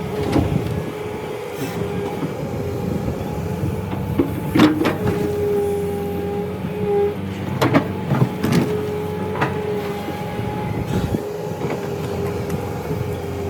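Excavator working: engine running steadily with a whine that comes and goes, and a few sharp metallic clanks.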